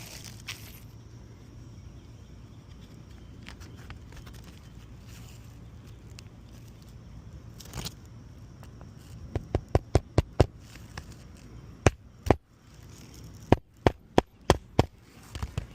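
Sharp knocks and cracks from a tool working at old, brittle three-tab asphalt shingles on a roof, coming in quick runs of five or six strikes from about nine seconds in.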